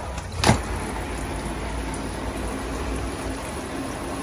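Shower running, water spraying onto a backpack and its straps on the shower floor: a steady hiss of falling water, with one sharp knock about half a second in.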